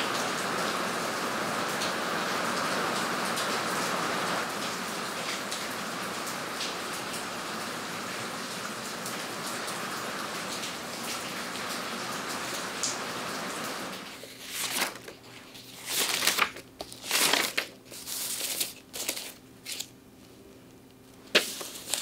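Steady rain falling, an even hiss, that cuts off abruptly about fourteen seconds in. After it come several short, separate rustles of paper being handled.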